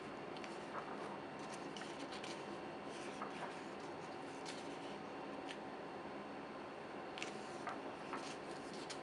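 Pages of a glossy softcover photobook being turned by hand: short paper rustles and flicks, busiest about a second and a half in and again near the end, over a steady faint hiss.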